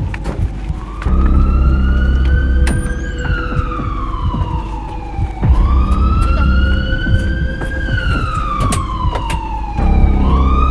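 Emergency-vehicle siren wailing: its pitch rises over about two seconds, then falls slowly, three times over, with a low rumble that comes in at each rise.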